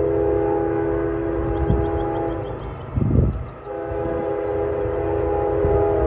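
Train horn sounding a chord of several notes in two long blasts, the second starting a little under four seconds in, over the low rumble of the train. A brief loud low rumble falls in the gap between the blasts, about three seconds in.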